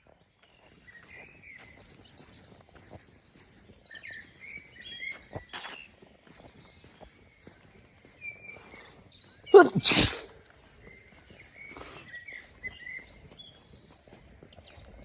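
A single loud sneeze about ten seconds in: a short drawn-in sound and then a sharp burst, part of a sneezing fit.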